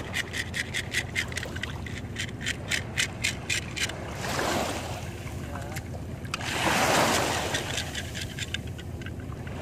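A hand-held plastic fish scaler scraping scales off a grouper in quick strokes, about four a second. Twice in the middle the strokes give way to a rush of splashing water, the second one louder, before faint scraping resumes near the end.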